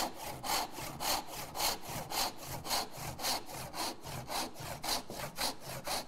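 Brass-backed tenon saw cutting a kerf into a small wooden clamp jaw, in steady, even strokes of about two a second. This is the kerf that lets the jaw flex, sawn from the second side to even out the cut.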